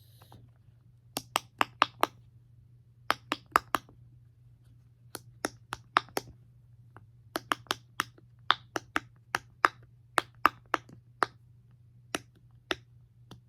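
Bubbles of a silicone pop-it fidget toy being pressed through one after another, making sharp little pops. They come in quick runs of three to five, with short pauses between the runs.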